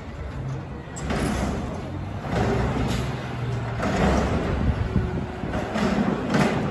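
GFL garbage truck working at a dumpster enclosure: its engine runs steadily underneath four separate surges of mechanical noise as the truck moves back and repositions.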